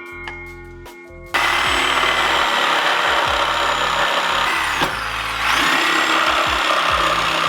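Chop saw cutting 1.5-inch PVC drain pipe. The motor starts abruptly about a second in and runs loud through a cut. It winds down briefly about five seconds in, then spins up again for a second cut.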